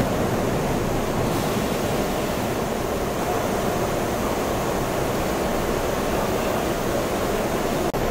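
Electric arc furnace running: a loud, steady noise like rushing water, with a brief click near the end.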